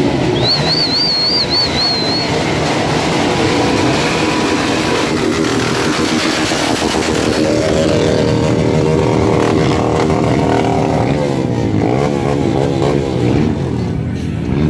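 Motorcycle engines running, their pitch rising and falling as they rev about twelve seconds in. A high warbling whistle sounds for about two seconds near the start.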